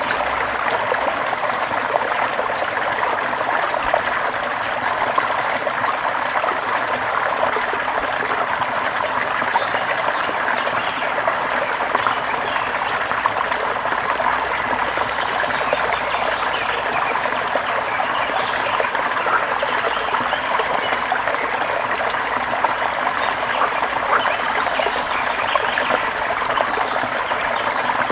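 Water flowing and trickling steadily, a continuous splashing rush with fine crackle and no pauses.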